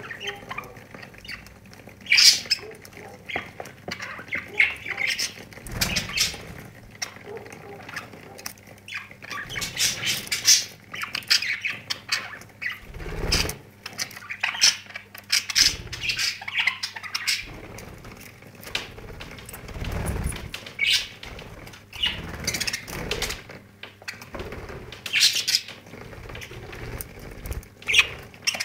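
Pet budgerigars chirping and squawking in short, irregular bursts, with wing flapping as they bathe and flutter.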